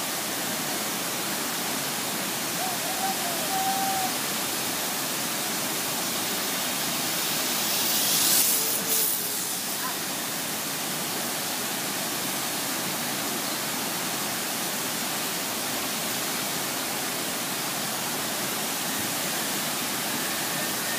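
A large waterfall pouring: a steady, loud rush of falling water. About eight seconds in, a brief swell of brighter hiss rises and fades.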